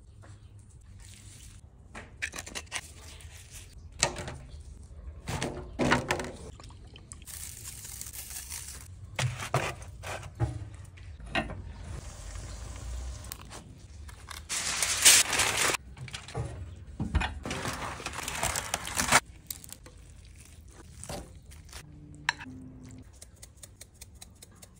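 A string of short cooking handling noises: knocks, scrapes and bursts of rustling, including a disposable aluminium foil tray crinkling as it is set on a grill grate. Later, wet sounds of the roasted leg of lamb being handled in the juices in its tray.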